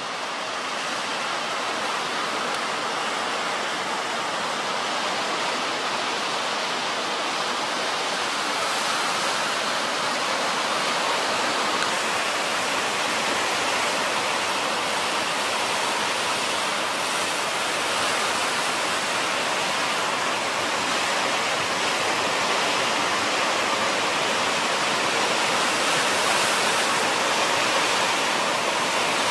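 Steady rush of distant surf from the sea below: an even, unbroken hiss with no separate wave crashes standing out.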